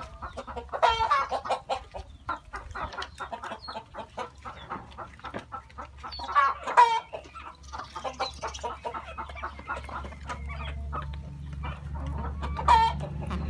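Chickens clucking while feeding, over a fast patter of beaks pecking at coconut flesh and grain in a plastic tray. Louder squawking calls come about a second in, midway and near the end.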